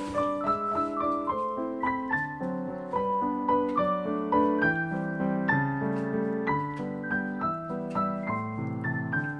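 Background piano music: a melody of single struck notes over lower chords.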